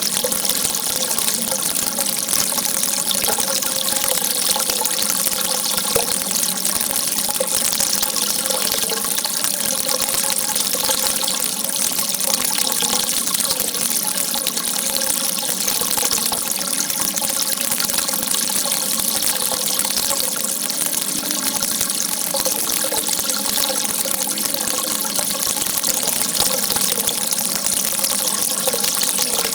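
Water gushing in a steady, unbroken rush, with an even hiss strongest in the high range.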